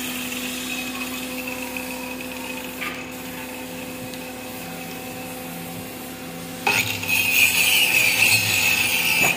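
Compressed-air spray gun spraying wood polish: a steady hum of the air compressor, then from about seven seconds in the gun hisses loudly for roughly two and a half seconds.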